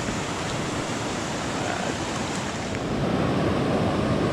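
A river rushing steadily, a full, even wash of running water from a river running high after heavy rain.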